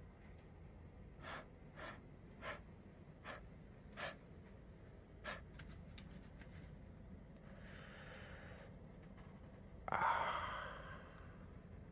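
Light clicks and taps of a CD being handled in its moulded pulp-cardboard tray and prised off the cork centre hub: about six irregular clicks, then a few fainter ticks. About ten seconds in comes a short, loud, breathy gasp that fades over about a second.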